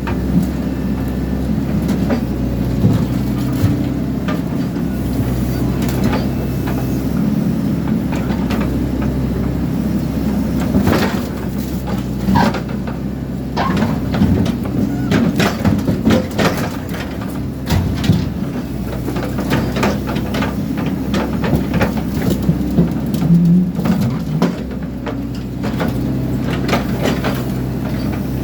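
Excavator engine running under load while the machine tears apart a hot water system, with frequent sharp clanks and knocks of metal being crushed and pulled.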